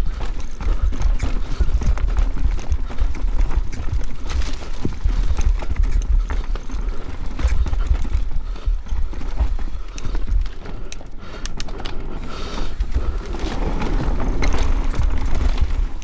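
Mountain bike riding fast down a rough dirt and rock trail: wind buffets the microphone in a steady low rumble while the tyres crunch over the ground and the chain and frame rattle in a stream of small knocks.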